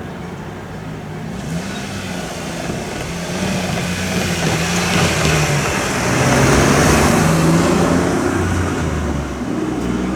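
A vehicle passing close by: its running noise and low hum swell to a peak about two-thirds of the way through, then ease off.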